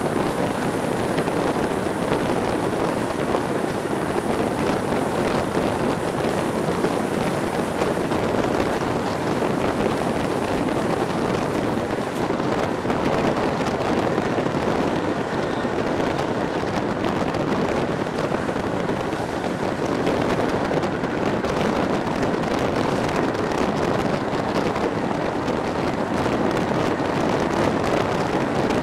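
Steady running noise of a railway passenger coach travelling at speed, wheels rumbling on the rails, with wind buffeting the microphone at the open coach window.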